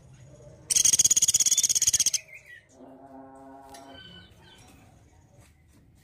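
Pelatuk beras, a small woodpecker, giving a loud, high, rapid rattling trill of about a dozen notes a second, lasting about a second and a half and starting just under a second in. A steady low droning tone follows for about a second.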